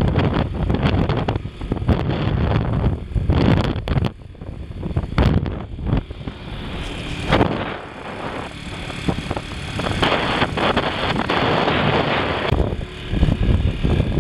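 Wind buffeting the microphone on a moving motorcycle, mixed with engine and road rumble, rising and falling in gusts as it climbs a mountain road.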